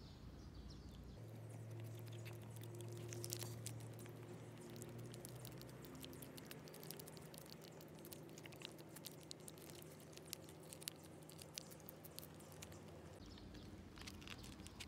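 A cat chewing its food: a faint, dense run of small crunching clicks. A low steady hum lies underneath, starting about a second in and stopping near the end.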